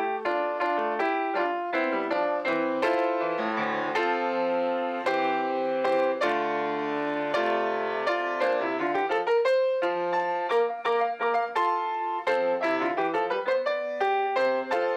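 Piano playing a continuous flowing passage of many quick notes and chords.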